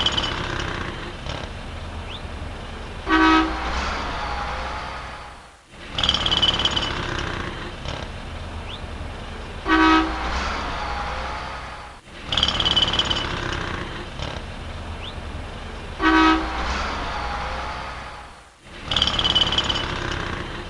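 City street traffic noise with a car horn giving a short honk three times, about six and a half seconds apart, as the same short recording loops.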